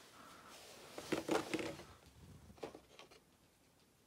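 Small plastic action-figure hands clicking and rattling as they are picked out of a plastic tray: a cluster of clicks about a second in, then a few lighter clicks near the three-second mark.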